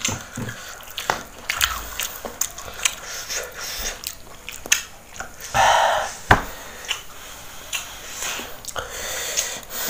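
Raw cassava being bitten and chewed close to the microphone: many short, crisp crunching clicks. A loud breathy burst comes a little past halfway.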